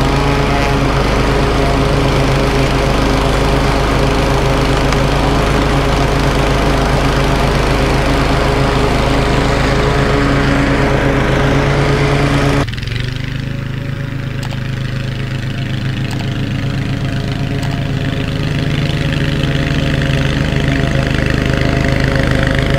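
Toro TimeMaster walk-behind lawn mower engine running steadily at mowing speed while cutting grass low. About halfway through it suddenly becomes quieter and more distant, then grows gradually louder as the mower comes back toward the listener.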